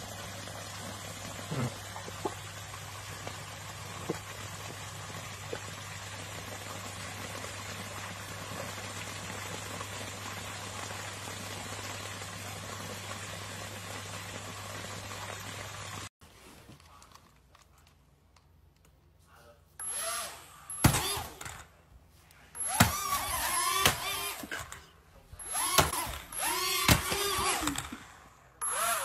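Steady rushing noise of pond water, with a low hum under it. It cuts off abruptly, and after a few quiet seconds come short bursts of vocal sounds rising and falling in pitch, mixed with sharp thumps.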